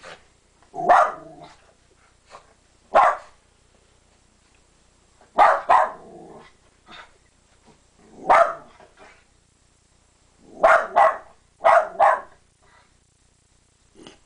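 West Highland white terrier barking at dogs outside: short, loud barks, about nine in all, some single and some in quick pairs, with pauses of a second or two between.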